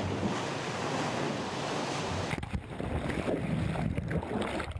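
Seawater rushing and splashing around a person plunging in after a cliff jump. About halfway through it becomes a muffled underwater rushing and bubbling, heard from a head-mounted camera under the surface.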